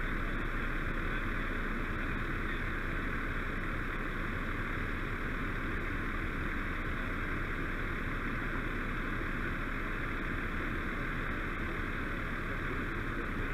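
Heavy diesel truck engines running steadily on the scene: a constant low rumble with a hiss over it, unchanging throughout.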